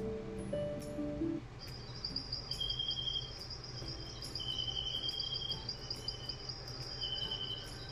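A short melody on the aurora projector's built-in speaker stops about one and a half seconds in. A recorded nature track of crickets takes over: a steady high trill with shorter, lower chirps coming and going over it.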